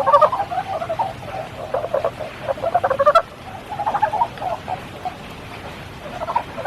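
Frogs croaking in runs of rapid pulsed calls, with a short break a little past the midpoint, over the steady hiss of spring rain.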